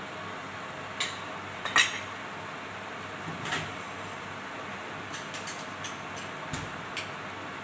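A few light clinks and knocks of kitchenware, the loudest about two seconds in, then faint ticks in the last few seconds, over a steady hiss.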